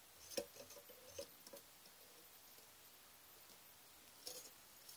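Faint scattered ticks and scratches of thin craft wire being bent and wrapped by hand, a few in the first second and a half and a short cluster near the end, otherwise near silence.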